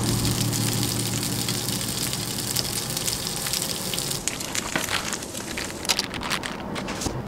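Vienna sausages sizzling and frying in a hot pan. The sizzle thins out after about four seconds, leaving a few light clicks and crackles.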